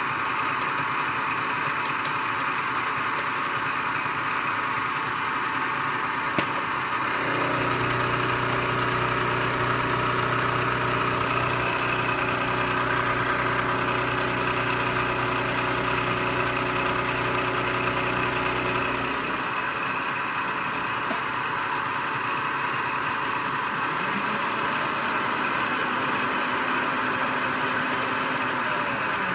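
Milling machine running steadily. From about seven seconds in until about nineteen seconds, a lower steady hum joins it while the end mill cuts the 1018 steel block.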